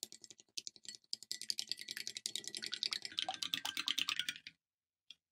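Metal spoon beating two eggs in a ceramic bowl: a quick, steady run of light clicks as the spoon knocks the bowl and slaps the eggs, stopping about four and a half seconds in.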